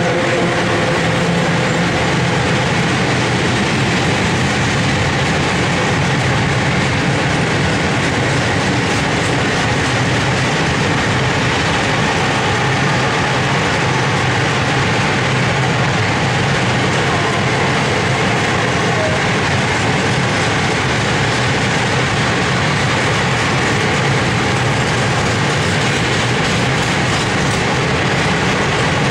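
Freight train of open-top gondola wagons rolling past close by: the steady, loud noise of wagon wheels running on the rails.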